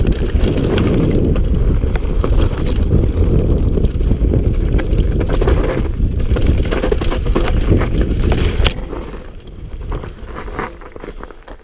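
Mountain bike descending a rough dirt singletrack: wind buffeting the camera microphone over tyre rumble and the chain and frame rattling over the bumps. About three-quarters of the way through the noise drops sharply as the bike slows, leaving lighter rattles and clicks.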